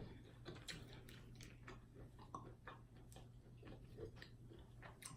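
Faint, irregular mouth clicks and soft chewing from eating fried food, over a faint steady hum.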